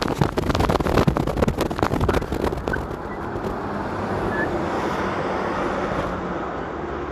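Steady hiss of rain with low traffic hum underneath. Rapid knocks and rustles against the microphone fill the first three seconds.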